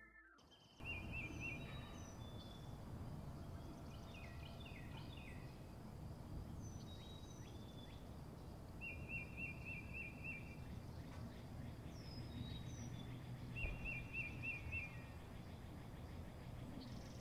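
Outdoor ambience starting about a second in: small birds singing, one repeating a short, quickly warbled phrase every few seconds among scattered higher chirps, over a low steady rumble.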